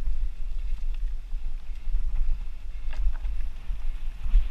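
Low wind rumble buffeting a helmet-mounted camera's microphone while a mountain bike rolls over dirt singletrack, with a few faint rattling clicks from the bike about three seconds in.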